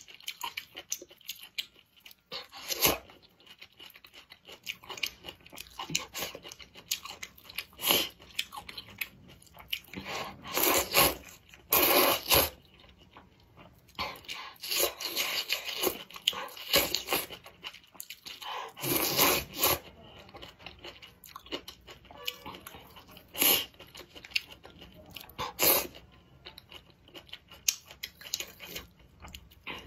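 Close-miked eating of a bowl of rice-noodle soup with leafy greens: irregular wet chewing and crisp, crunchy bites, some sharp and short, others drawn out for about a second.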